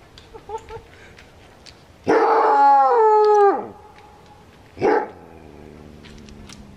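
Trapped coyote giving one long howling yelp, about a second and a half, that steps down in pitch and trails off, then a single short bark a second later.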